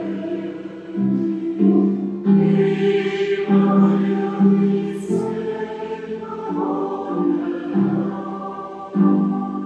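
A congregation singing a slow hymn, with a woman's voice close to the microphone leading it; the notes are held and change about once a second.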